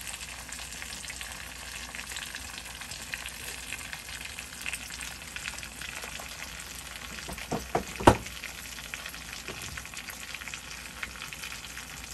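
A half whole chicken sizzling and crackling in oil in a stainless-steel pan while a silicone brush works over it. About eight seconds in comes a short run of knocks, the last one sharp and the loudest sound.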